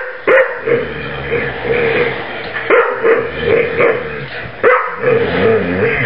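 Two dogs at play, barking sharply about four times over a continuous, wavering vocal sound from the dogs.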